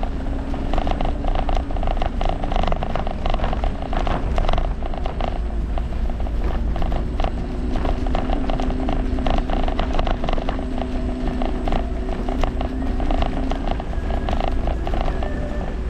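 Riding noise of an electric kick scooter on a city street: a steady low rumble with a wavering hum and many small clicks and rattles.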